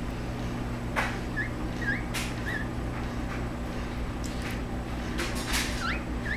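Standard poodle puppy giving about five short, high, upward-sliding whimpers, three close together about a second in and two near the end, over a steady low hum and a few sharp clicks.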